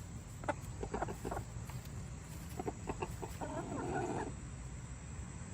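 Chickens clucking: a run of short clucks, then one longer call of nearly a second about three and a half seconds in.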